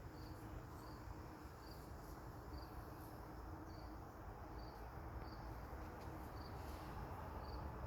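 Faint steady hum of a honeybee colony at an opened hive, with a cricket chirping in short, high pulses repeating at a steady pace.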